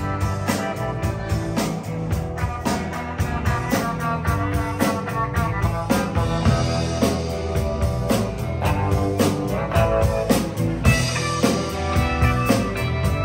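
Live rock band playing: electric guitars over a steady drum-kit beat.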